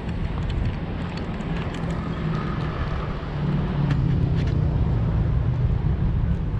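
Low engine rumble of a motor vehicle, growing louder about halfway through.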